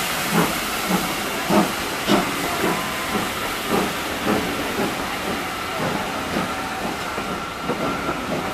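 GWR Hall class 4-6-0 steam locomotive pulling away under power: regular exhaust beats, about two a second, over a steady hiss of steam, with the coaches rolling past close by. The beats grow fainter near the end.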